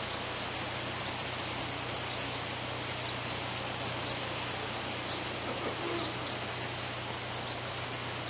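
Steady outdoor rushing noise with a low steady hum beneath it, and a small bird chirping repeatedly, about once or twice a second.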